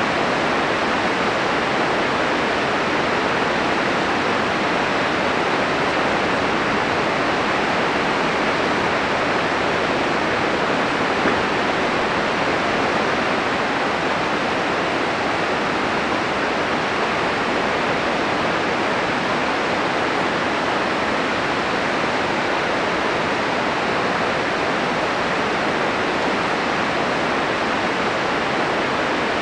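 Glacial meltwater river rushing steadily, an even unbroken noise of fast-flowing water.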